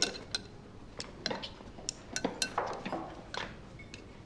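Dishes and cutlery clinking at a table: a series of short, light clinks and knocks of tableware as a meal is served and eaten.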